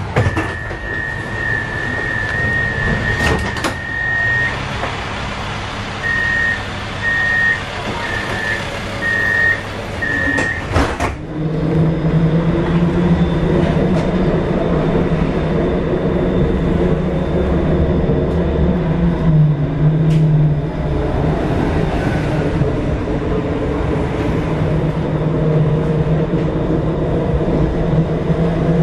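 Pesa Swing tram door warning: a steady high beep, then a string of short beeps about once a second, ending in a click as the doors shut. The tram then moves off, and its motors hum steadily under rolling noise.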